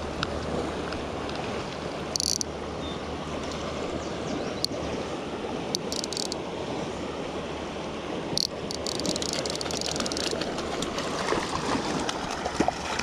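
Fast, shallow river riffle rushing close by: a steady wash of moving water, broken by a few short sharp clicks and knocks.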